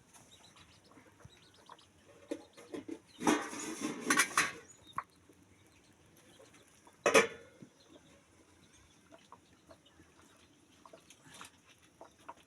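Domestic chickens clucking, with a loud, noisy burst lasting over a second about three seconds in and a sharp, short one about seven seconds in.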